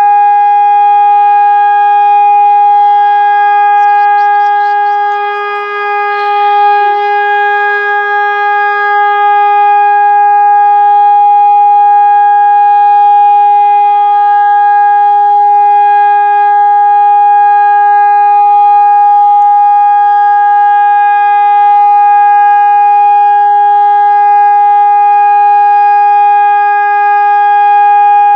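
Hörmann ECN electronic warning siren sounding the all-clear: one loud, steady, unwavering tone that signals the emergency is over. The level dips briefly about five seconds in, under a little rustling noise.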